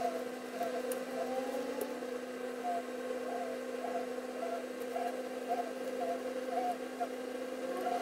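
A steady machine hum, with short faint blips sounding irregularly over it.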